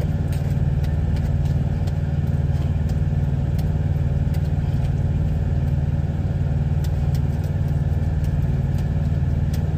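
Steady low drone of an idling truck engine, with faint scattered clicks from a utensil working mashed potatoes in a foil pan.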